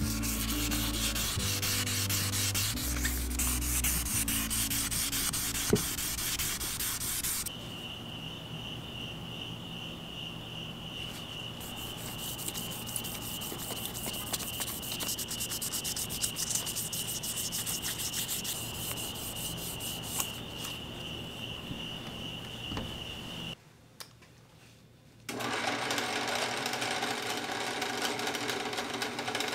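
Sandpaper rubbed back and forth by hand over an aluminium Shimano crank arm, a dense scratchy scraping. From about seven seconds in the scraping is quieter, under a steady high whine. Near the end a drill press spins a cotton buffing wheel as a part is polished.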